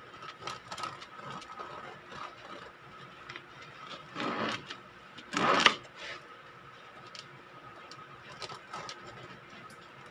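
Serrated bread knife sawing through the crust of an oat-and-flaxseed sourdough loaf, a run of short rasping strokes, with two louder crackly bursts around four and five and a half seconds in as the cut slice is worked off the loaf.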